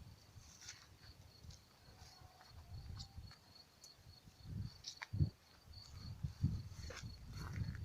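An insect, cricket-like, chirping steadily in a high, evenly repeated pulse, several chirps a second, over a low rumble, with a few soft thumps about five to seven seconds in.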